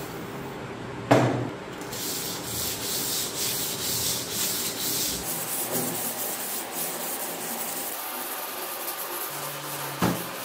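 Steel machete blade being hand-sanded with sandpaper, wet with sprayed lubricant: quick, rhythmic back-and-forth rubbing strokes that start about two seconds in. A sharp knock comes about a second in, and another near the end.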